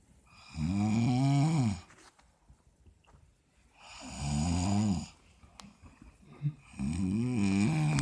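A sleeping person snoring: three long, pitched snores about three seconds apart, each lasting a second or so.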